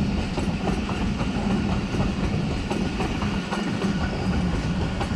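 Pakistan Railways passenger coaches rolling past close by. Their wheels clack over the rail joints in quick, uneven clicks over a steady rumble.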